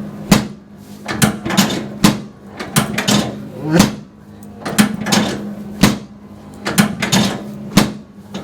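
About a dozen sharp clacks and knocks at an uneven pace, most less than a second apart, from chiropractic treatment on the patient's table, over a steady low hum.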